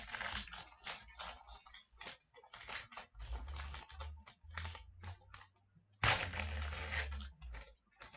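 Hockey card pack wrapper crinkling as it is torn open, then the cards being handled and slid against each other: a run of irregular crackles and rustles, loudest about six seconds in.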